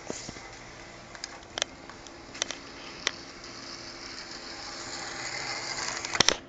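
Small electric motor of a model ALn 663 railcar running along the track with a steady whir, scattered with sharp clicks, getting louder as the railcar comes close. A few loud clicks come near the end.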